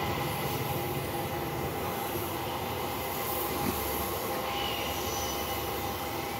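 Compressed-air paint spray gun hissing steadily as finish is sprayed onto a carved wooden headboard, with a steady mechanical hum underneath.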